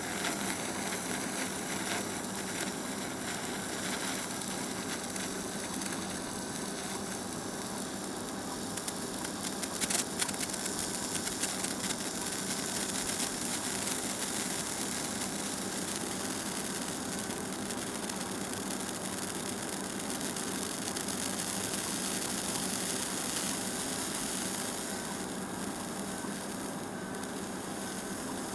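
Senko hanabi (Japanese hand-held sparkler) burning with a steady fizzing hiss, a few sharper crackles about ten seconds in.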